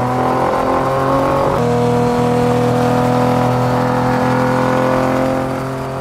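Ferrari 250 LM's 3.3-litre V12 pulling hard under acceleration, its pitch climbing. About a second and a half in, an upshift drops the revs, and then they climb slowly again. The sound fades near the end.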